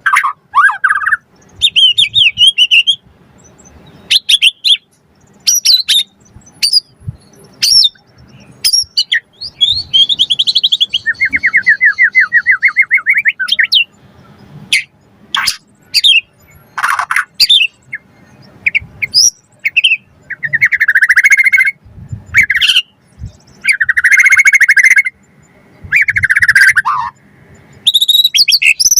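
White-rumped shama (murai batu) singing a long, varied song: clear whistled notes and glides, a fast rattling trill, and harsh buzzy notes, in phrases with short gaps between them.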